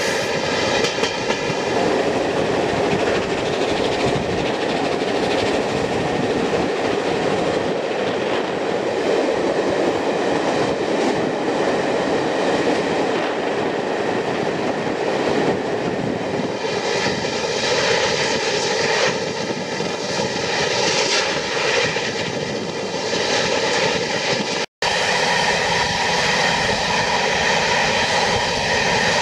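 Train hauled by steam locomotive 60163 Tornado, an A1 Pacific, running with a steady loud roar and a few steady tones over it. Near the end the sound drops out for an instant and then carries on.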